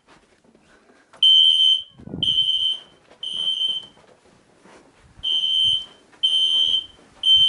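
System Sensor SpectrAlert P2415-75 fire alarm horn strobe sounding loud, high-pitched beeps in the temporal-three evacuation pattern: three half-second beeps, a pause, then three more. The system is in alarm because its manual pull station has been pulled.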